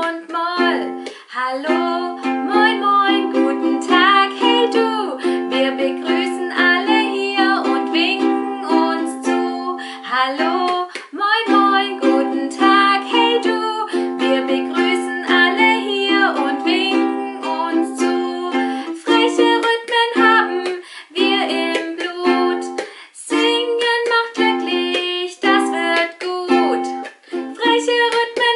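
Ukulele strummed in chords while a woman sings a German children's song over it.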